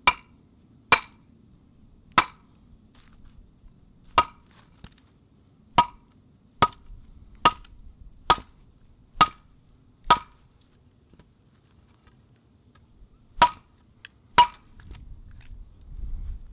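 Hatchet chopping into a thin stick of wood stood on a stump, splitting it for kindling: about a dozen sharp wooden strikes, roughly one a second, with a pause of a few seconds before the last two.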